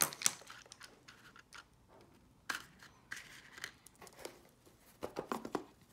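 Makeup brushes and a cardboard box with foam inserts being handled on a countertop: a scattered series of light clicks and taps, with brief rustles around the middle.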